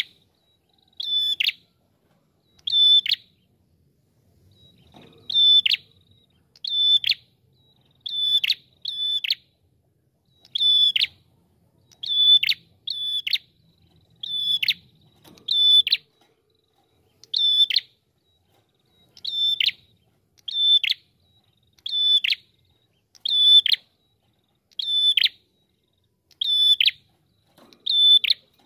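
Red-headed prenjak (prenjak kepala merah) calling: a steady series of short, sharp, high notes, each dropping quickly in pitch at its end, repeated about every second to second and a half, now and then in quick pairs.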